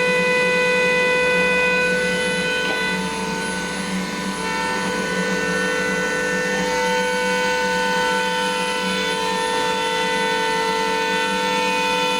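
A 4-axis CNC machining center's spindle and cutter engraving a metal tire mold: a steady whine made of several held tones over the noise of cutting. It eases slightly, and its tones shift, a few seconds in.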